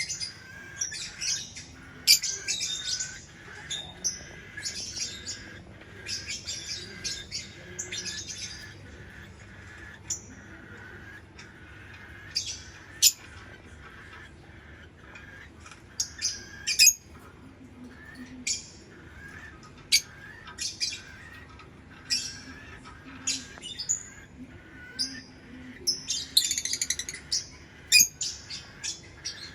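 Lovebirds chirping and squawking: bursts of rapid, shrill chatter broken by single sharp, piercing calls.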